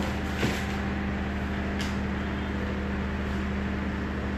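Steady low mechanical hum, with two brief soft rustles of fabric and paper pattern pieces being laid out on a table, about half a second and nearly two seconds in.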